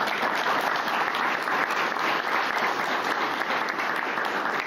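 Audience applauding: many people clapping, dense and steady.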